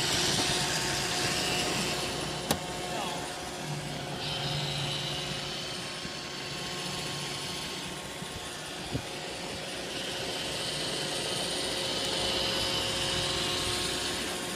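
iRobot Roomba 650 series robot vacuum running its cleaning cycle: a steady motor and brush whir whose high whine swells and fades as it moves about. A sharp click about two and a half seconds in, and a smaller knock later, as it bumps into something.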